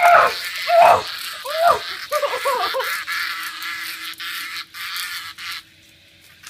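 A cicada buzzing close by, a harsh rattling buzz that cuts off abruptly about five and a half seconds in. Over the first three seconds a person cries out in several loud squeals.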